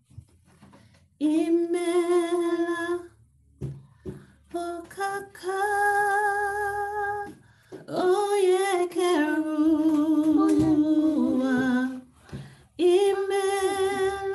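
A woman singing a slow worship song unaccompanied, holding long notes with short pauses between phrases. About halfway through, a phrase wavers and slides down through several notes.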